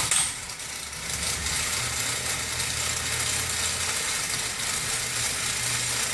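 Power tool motor running continuously for about six seconds with a dense mechanical rattle and a steady low hum, starting and stopping abruptly.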